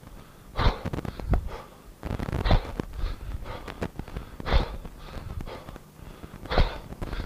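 A man's sharp, forceful breaths, a strong one about every two seconds with fainter ones between, in time with each kettlebell push press he drives overhead.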